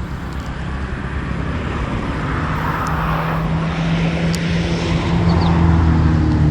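An engine running with a steady low hum that grows gradually louder, over a background of outdoor noise.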